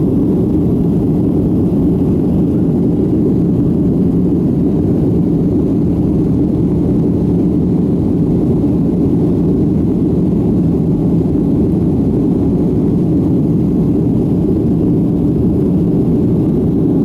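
Jet airliner cabin noise in flight: steady engine and airflow noise heard inside the cabin by the window, deep and unchanging.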